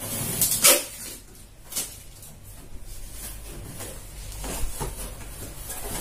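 Cardboard shipping box opened by hand: a few sharp rips and scrapes of cardboard and packing in the first two seconds, then quieter rustling as the flaps are folded back.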